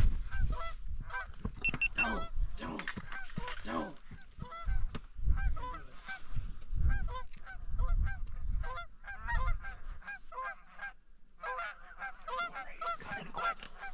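Canada goose honks and clucks in a fast, busy run of short calls, pausing briefly near the end, with low bumps on the microphone.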